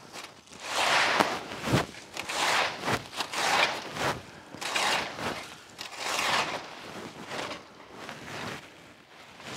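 Rake dragged through dry fallen leaves in repeated strokes, a rustling swish about once a second.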